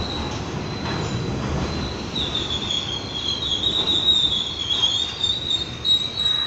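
Subway train pulling into an underground station: rolling rumble of the cars with a high steel-wheel squeal that grows stronger and wavers in pitch from about two seconds in.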